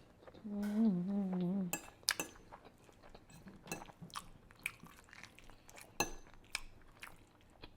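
Fork clinking and tapping against a dish of Alfredo pasta in scattered light clicks. About half a second in there is a short wavering hum from the eater.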